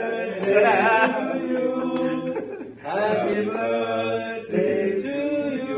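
A small group of men singing together without accompaniment, in drawn-out held notes, broken into short phrases with brief pauses between them.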